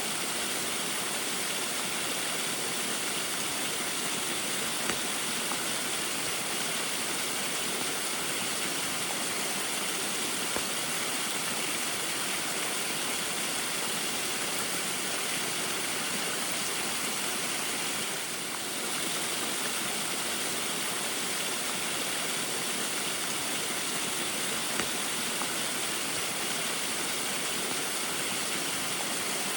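Small waterfall splashing steadily in the rain, an even rushing of water with a few faint drips, briefly softer about eighteen seconds in.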